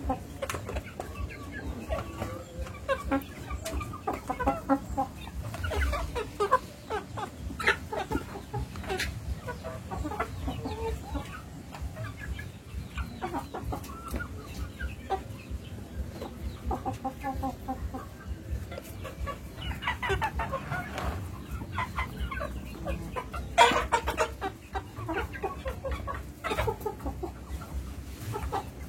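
Birds making many short, repeated calls, over a low steady rumble, with one louder sharp call near the end.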